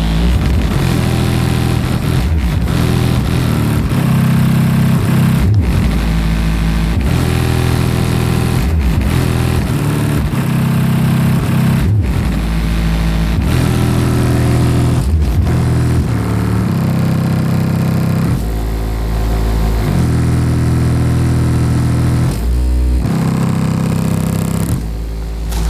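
A 12-inch subwoofer in a ported box tuned to 32 Hz, playing music at high volume in a car trunk. Its deep bass notes step from one pitch to another every second or two, with a distorted haze over them. The level dips briefly near the end.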